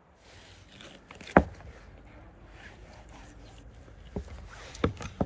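Knife cutting raw lamb away from the ribs on a wooden board. One sharp knock comes about a second and a half in, and a few lighter knocks come near the end.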